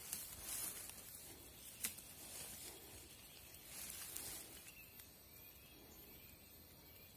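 Quiet forest ambience with soft rustling. There is one sharp click a little under two seconds in, and faint short chirps repeat about once a second in the second half.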